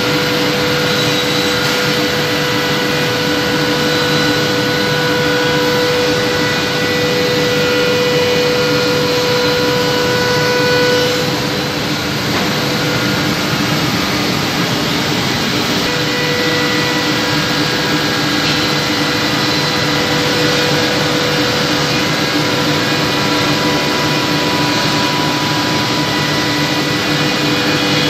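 Ming Da CNC chair-part sanding machine running, a loud, steady whirring hum of its motors and sanding heads. Its steady tone drops away for a few seconds in the middle, then returns.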